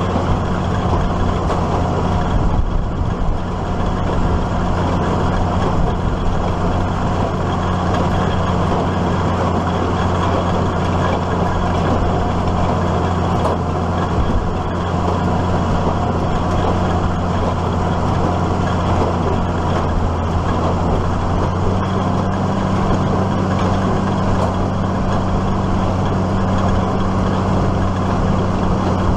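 Case IH Maxxum 5140 tractor's diesel engine running steadily under load while driving a New Holland 570 small square baler through hay. The engine note steps up slightly in pitch about three quarters of the way through.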